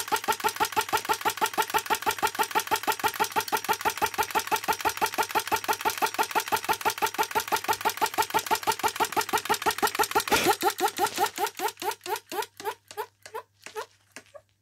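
Model flame-gulper engine running with a fast, even beat of about six pulses a second. About ten seconds in there is a short rush of noise, then the beats slow and fade as the engine coasts to a stop.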